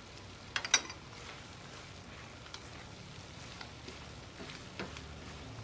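Chicken, peanuts and onion sizzling steadily in a nonstick frying pan as they are stirred with a silicone spatula, with a few sharp knocks of utensils against the pan, the loudest just under a second in and another near the end.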